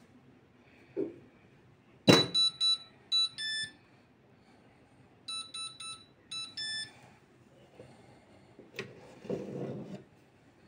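Arçelik Telve Turkish coffee machine plays its beep melody twice, about three seconds apart: a few quick beeps and a longer last tone, after a click. This is its signal that the coffee has brewed. Near the end comes a brief scrape as the pot is lifted out.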